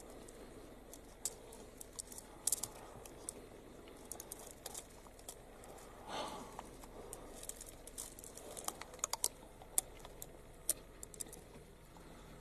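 Leopard chewing and tearing at a porcupine carcass: faint, irregular crunching and crackling clicks, with a softer, longer sound about six seconds in.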